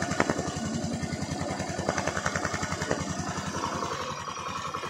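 Freshly rebuilt engine of a Honda Activa 4G scooter, a single-cylinder four-stroke, running steadily just after its first start, with an even, rapid pulsing of its exhaust.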